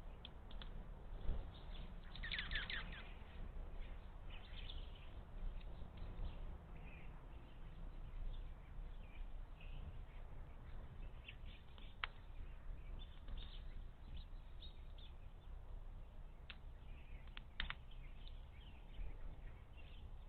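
Small birds chirping now and then, with a denser run of calls about two seconds in, over a low steady rumble of outdoor background noise. A few sharp single clicks come later on.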